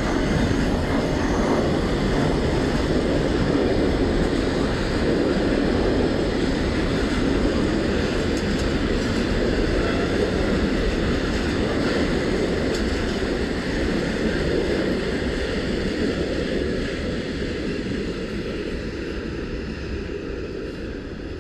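Freight train of covered hopper wagons rolling past: a steady rumble of wheels on rail, slowly fading over the last few seconds as the wagons move away.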